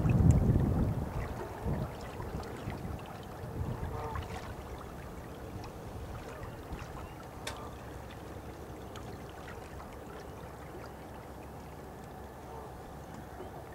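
Wind buffeting the microphone for the first second or two, then dying down to a faint steady wash of water lapping at the boat with a few small scattered clicks.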